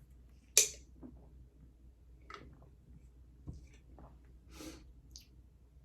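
Close-miked eating-show quiet: a sharp click about half a second in, then faint scattered mouth and handling noises and breaths between bites.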